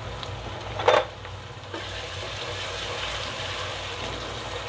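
Onions and spice pastes frying in oil and ghee in a cooking pot, a steady sizzle that grows fuller about two seconds in, with one sharp clink about a second in.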